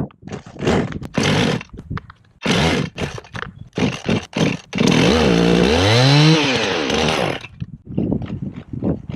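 Husqvarna 55 two-stroke chainsaw running in short, choppy bursts, with one longer rev that climbs and drops back about five to seven seconds in.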